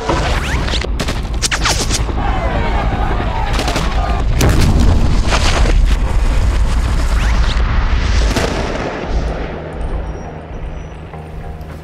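Loud, dense film sound design: a deep rumble under a rush of noise with several sharp cracks, swelling to its loudest midway and easing off in the last few seconds, where a low held tone comes in.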